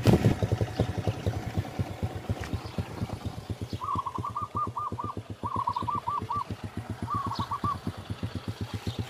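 Small motorcycle engine idling with a quick, even putter. Several times from about four seconds in, a bird calls in short runs of four or five quick repeated notes.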